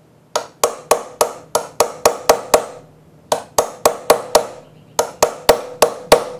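Hammer striking a steel pin punch to drive a pin out of a part of a 1930 Briggs & Stratton model FH engine, set on a machinist bench block. Sharp metallic taps, about four a second, each with a short ring: a run of about ten, a brief pause, then about a dozen more. The pin is starting to move.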